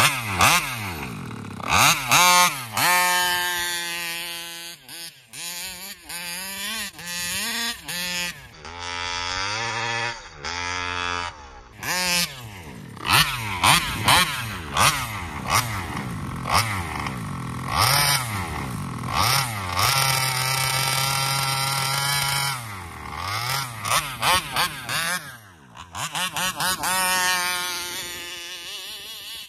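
Taylor RC 35cc reed-valve two-stroke engine in a large-scale RC car, revving up and down over and over. It mixes short throttle blips with a few steady stretches, the longest about two-thirds of the way in.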